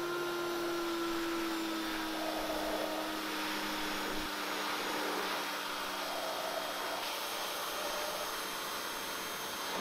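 Pressure washer running. Its motor gives a steady whine that sags a little in pitch over the first few seconds, under the hiss of the water jet spraying on rusted steel.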